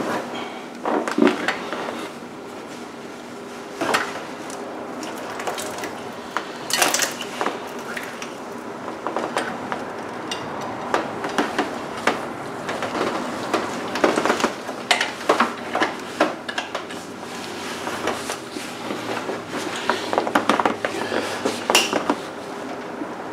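Irregular metallic clinking and rattling as a chain wrench is fitted around the crankshaft pulley to lock it, its chain and steel handle knocking against the pulley and engine parts.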